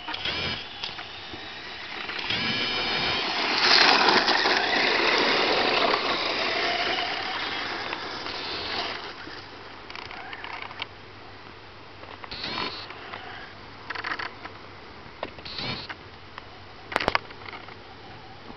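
Traxxas Slash 4x4 RC truck's electric motor whining under throttle, with its tyres scrabbling over gravel. The loudest stretch comes about four seconds in and lasts several seconds, followed by short bursts of throttle.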